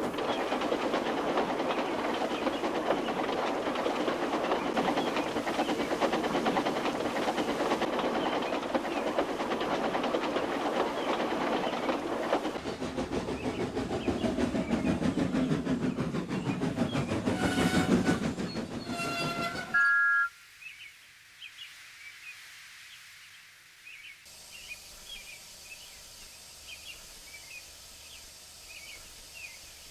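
Steam locomotive running with its coaches rattling along the track. A brief whistle sounds just before the sound cuts off abruptly about two-thirds of the way through. After that there is quiet outdoor ambience with birds chirping.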